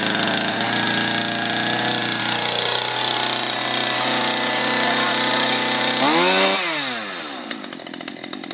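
Gasoline chainsaw running fast just after starting on half choke. Its speed sags slightly a few seconds in, then it revs up once about six seconds in and falls back to a lower, quieter idle.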